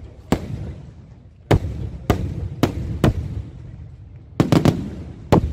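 Aerial firework shells bursting in a string of sharp bangs, about eight in all at uneven intervals, with a quick cluster of three about four and a half seconds in. Each bang trails off in a low rumbling echo.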